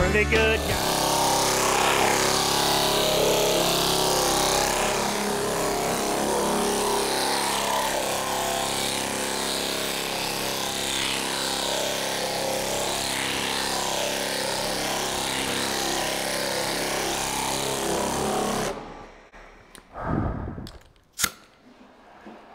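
Air sander running steadily against a fiberglass truck hood, stopping abruptly about four seconds before the end, followed by a few light knocks and a sharp click.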